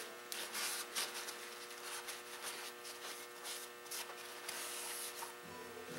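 Paper towel rustling and rubbing in quick strokes as the top of a motorcycle engine's cylinder is wiped clean, over a steady hum.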